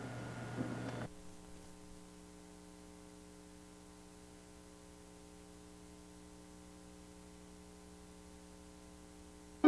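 About a second of faint background with a few light ticks cuts off, leaving a faint steady electrical hum made of several even tones, typical of mains hum in a blank stretch of a videotape transfer.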